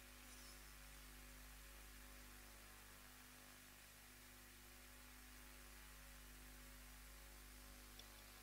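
Near silence with a steady low electrical mains hum from the sound system, and a faint tick near the end.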